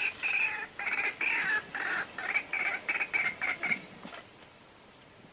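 White-breasted waterhen calling: a run of short repeated notes that come faster and faster and stop about four seconds in.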